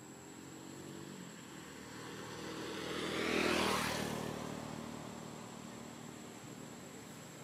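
A motor vehicle passing by: its engine grows louder, is loudest about halfway through, then fades away.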